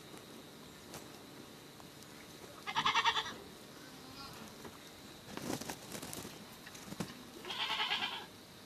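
Goat bleating twice, each a short quavering call of under a second, with a few knocks between the two calls.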